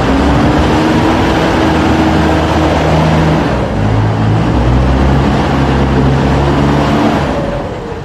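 Engine of an underground LHD loader running under load as it works by radio remote control. Its engine speed steps up and down several times, and the sound fades a little near the end as the machine moves away.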